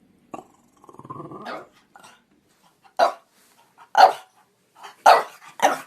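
French Bulldog giving a short growl about a second in, then barking four times, short sharp barks about a second apart, the last two close together.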